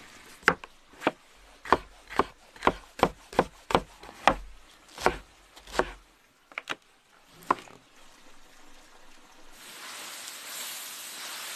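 Kitchen knife chopping green onions on a wooden cutting board: about a dozen sharp chops at an uneven pace, stopping after about seven seconds. Near the end, vegetables start sizzling as they fry in a hot pan.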